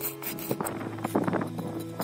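Background music with held, slowly changing notes, over the scraping and tapping of a steel trowel working mortar against bricks, loudest about half a second and a second in.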